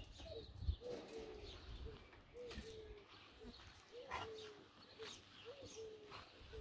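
A dove cooing: a low, pure call that hooks upward and then holds, repeated about once a second, with faint scattered chirps of small birds.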